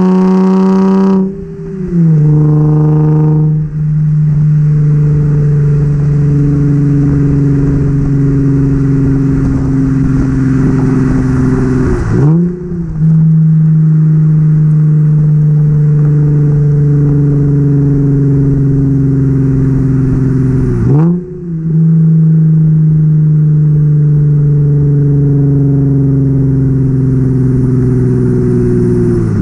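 Nissan 350Z's 3.5-litre V6 exhaust, nearly straight-piped with test pipes in place of the catalytic converters, heard at the tailpipe while driving. It is a loud, steady drone, broken three times by a short dip.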